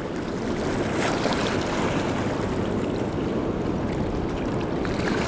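Swollen, fast river current rushing steadily, running high after weeks of rain, with wind on the microphone.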